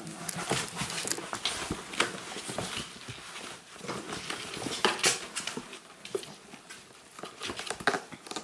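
Markiesje puppies shuffling and scrabbling inside a cardboard box, their claws scratching and tapping on the cardboard in irregular clicks and rustles.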